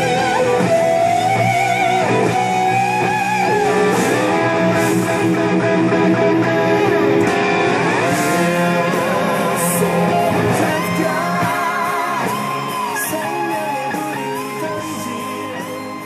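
James Tyler SE DX electric guitar playing a lead line through a DigiTech GSP1101 modeller and Lexicon MPX1 effects: held notes with vibrato and string bends over steady lower notes. The playing fades out over the last few seconds.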